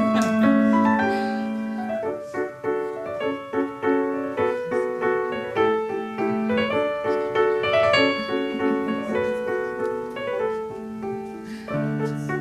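Piano playing a gentle piece: a run of struck notes over held lower notes.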